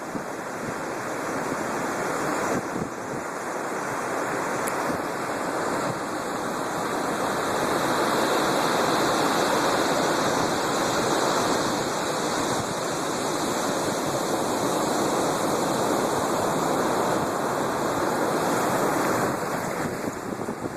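Storm surf: heavy waves breaking and rushing, building to a long loud wash of churning water and easing near the end.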